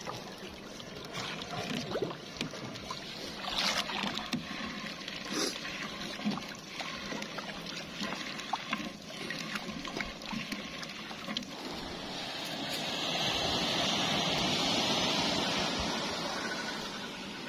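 Wet gill net being hauled in over the side of a wooden boat, water splashing and dripping off it, with scattered light knocks against the hull. Near the end a hissing rush swells for a few seconds and fades.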